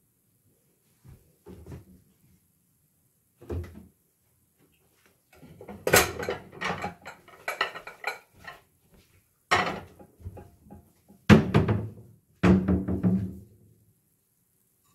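Ceramic dishes clattering and clinking as plates are handled and taken down from a kitchen cupboard: a string of sharp knocks, some ringing briefly, busiest in the second half.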